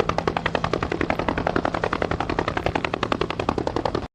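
Helicopter rotor blades chopping: a fast, even beat of about a dozen blade slaps a second, which cuts off suddenly near the end.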